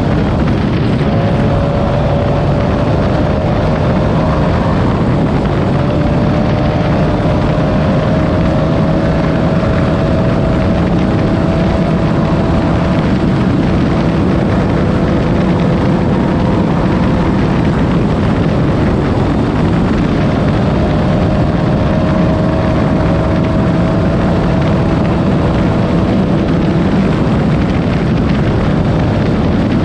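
A Class 9 off-road race buggy's engine runs hard and steadily at speed over a constant rough rumble from the car. Its pitch rises and falls gently.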